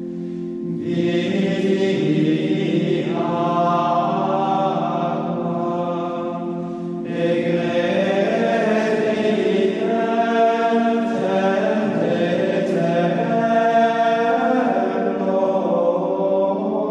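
Choir singing liturgical chant over low held notes, in two phrases: one beginning about a second in, the next about seven seconds in.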